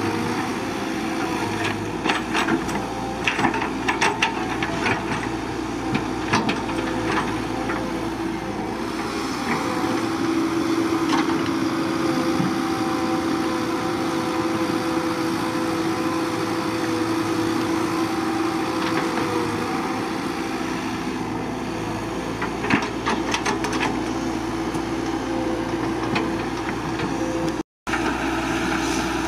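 Caterpillar 312BL hydraulic excavator's diesel engine running steadily as it works, with clusters of sharp cracks and knocks from the bucket digging rock and brush during the first several seconds and again near the end. The sound drops out for an instant near the end.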